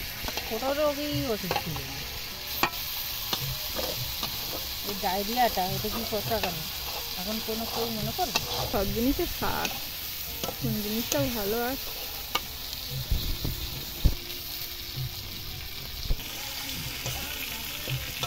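Metal spatula stirring and scraping meat frying in oil in a black iron kadai, with a steady sizzle and sharp clacks of the spatula against the pan. A few short squeaky tones rise and fall now and then, and chunks of raw potato drop into the pan with low knocks near the end.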